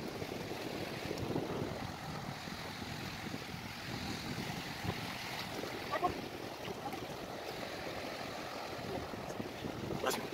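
Steady wash of small waves breaking and lapping in shallow sea water, with wind. A sharp click near the end.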